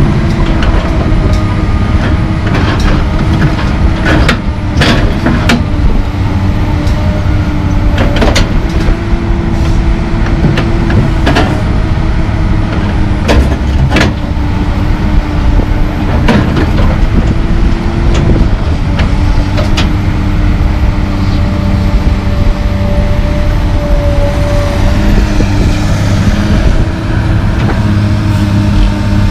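Komatsu PC220LC track excavator's diesel engine running steadily under load, with a scattering of sharp knocks and clanks as the bucket works. A higher steady tone joins the engine sound near the end as the loaded bucket swings over the dump truck.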